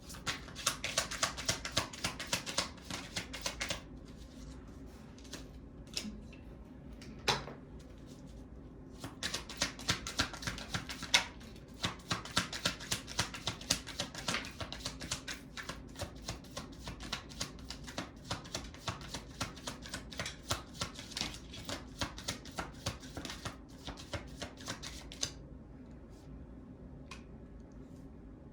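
A deck of cards being shuffled by hand: rapid card-on-card clicking in two long runs, stopping for a few seconds between them, with a couple of sharper single snaps.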